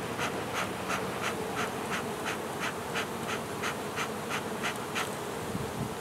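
Honey bees buzzing around a hive box in a steady hum, with a regular ticking about three times a second over it.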